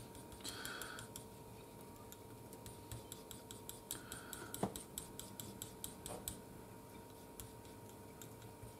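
Metal palette knife scraping and tapping on a palette while mixing oil paint: a run of quick, faint clicks and scrapes that thins out after about six seconds.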